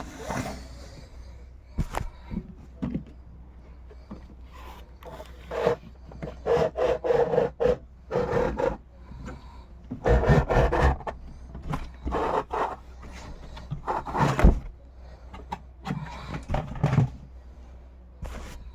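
A Funko Pop's cardboard box and plastic packaging being handled and opened: irregular bursts of rubbing and scraping, with a few sharp clicks.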